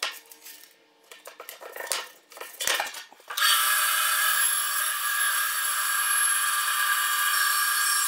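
A few light clicks and rustles of hands handling painter's tape and stacked wood pieces. About three seconds in, a bandsaw comes in abruptly and runs with a steady high-pitched hum while cutting through two taped-together fence-picket boards.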